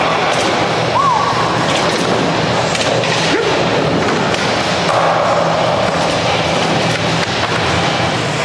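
Skateboard wheels rolling on the park surface, with sharp clacks of the board as tricks are popped and landed and a grind along a ledge in the middle.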